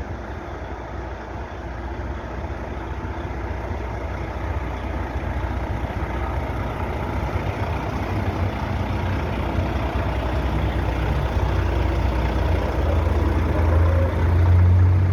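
Volvo heavy truck's diesel engine running with a deep, steady hum that grows steadily louder, loudest near the end.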